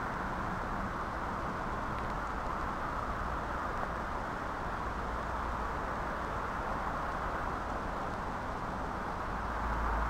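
Steady outdoor background noise, an even hiss with no distinct bird calls standing out, and a low rumble swelling near the end.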